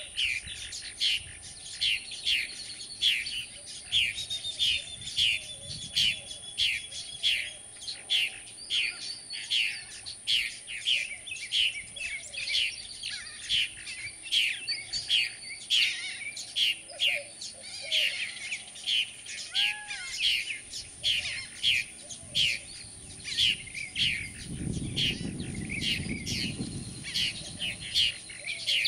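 Purple martin nestlings begging at a gourd nest: an unbroken run of short, sharp, falling chirps, about two a second. A low rumble comes in briefly near the end.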